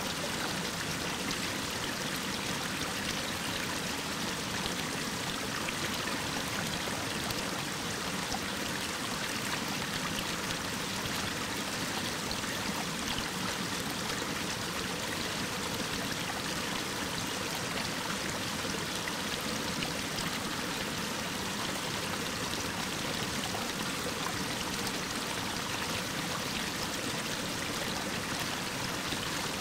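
Waterfall of a mountain stream pouring down a rock face: a steady, even rush of falling water.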